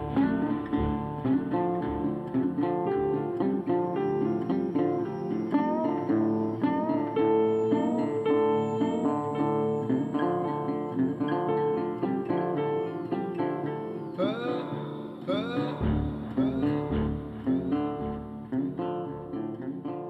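Background music: an acoustic guitar playing a run of plucked notes, with sliding notes about two thirds of the way in, growing quieter near the end.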